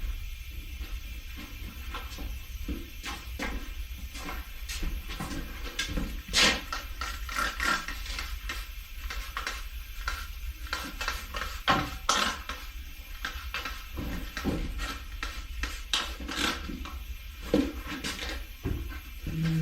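Irregular metallic clanks, knocks and scrapes of tools and parts while a motorcycle tire is worked off its wheel, over a steady low hum.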